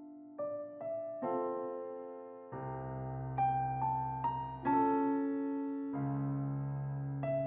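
Background piano music: gentle, slow notes and chords that ring out and fade, with deeper bass notes joining partway through.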